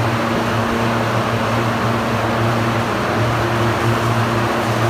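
Automatic tunnel car wash machinery running: a steady electric hum under a loud, even hiss.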